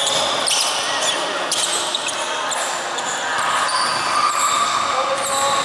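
Basketball game in a gym: sneakers squeaking on the court over and over, a ball bouncing, and background voices echoing in the hall.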